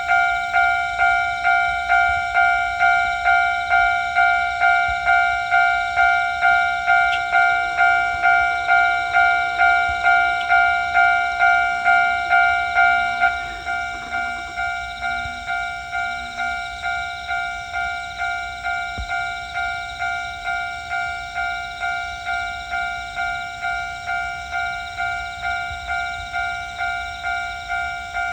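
Japanese railroad crossing alarm ringing its repeating 'kan-kan' warning tone, a little under two strikes a second. It drops noticeably in loudness about halfway through and keeps ringing at the lower level.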